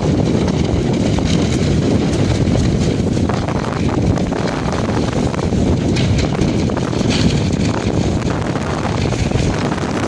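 Heavy wind buffeting the microphone aboard a sailing catamaran: a loud, steady rumbling rush with scattered crackles.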